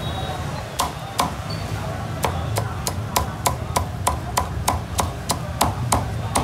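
Cleaver chopping crisp-skinned roast pork on a thick round wooden chopping block: sharp chops, two at first, then a steady run of about three a second.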